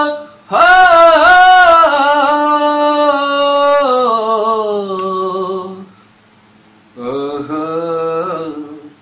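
A man singing loudly in an open-throated full voice, Indian classical vocal riyaz, as loud practice to open up the throat. It is one long held phrase that steps down in pitch near its end, then after a short breath a shorter second phrase.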